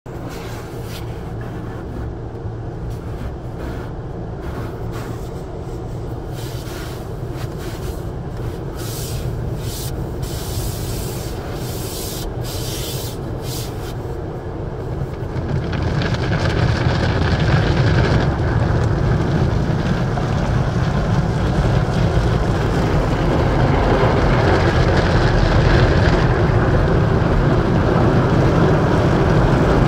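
Automatic car wash heard from inside the car: water spraying and hissing against the windshield and roof, then growing louder and fuller about halfway through as the spinning cloth brushes scrub over the car.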